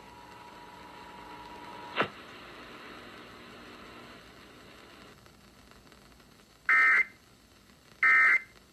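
Emergency Alert System end-of-message code: two short, loud screeches of digital data tones, about a second and a half apart, marking the close of the test. Before them a faint steady tone runs for about two seconds and ends in a click.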